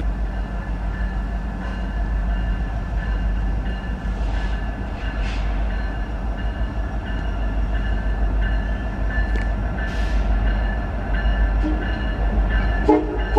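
CN freight train rolling with a steady low rumble, a thin steady high-pitched tone over it, and a few scattered clicks. Near the end, the locomotive horn begins sounding in short blasts.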